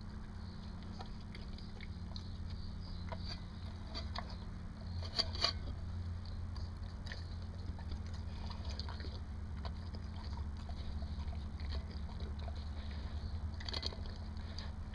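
A dog chewing and eating broccoli and meat from a stainless steel bowl, with scattered short crunches and clicks; the loudest cluster comes about five seconds in, and another near the end. A steady low hum runs underneath.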